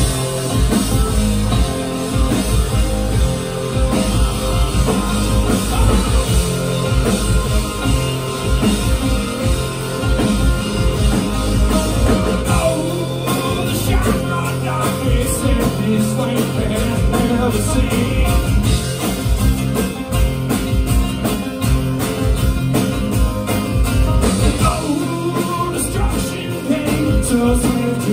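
Live band playing a loud, fast song that mixes thrash metal with bluegrass, on acoustic and electric guitars with bass and a drum kit, with a man singing; the full band comes in suddenly at the start.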